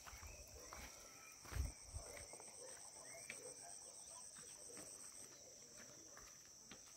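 Faint, steady high-pitched trilling of insects, with a second, faster pulsing trill that stops about five seconds in. Scattered light footsteps and walking-pole taps on the stone path, and one low thump about a second and a half in.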